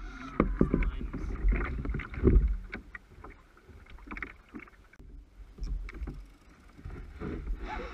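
Kayak hull knocking and water splashing against it as the kayak moves, in irregular bumps and sloshes, busiest in the first couple of seconds and again near the end.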